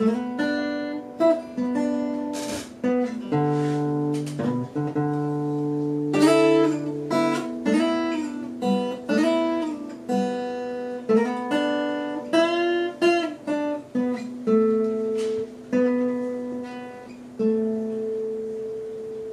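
Acoustic guitar played by hand: single notes and chords plucked and left to ring in a slow melodic passage, with a low bass note held for a few seconds early in the passage.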